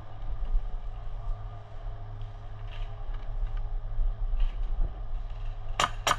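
A steady low rumble with faint outdoor noise, then near the end a quick run of sharp, evenly spaced cracks, about three a second.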